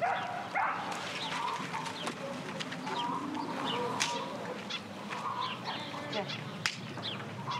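Domestic chickens clucking in a farmyard, many short calls, with a couple of sharp knocks partway through.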